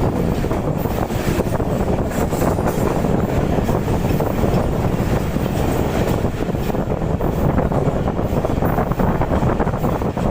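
Passenger train running on the rails: a steady rumble of wheels on track with scattered clicks and clatter, and some wind on the microphone.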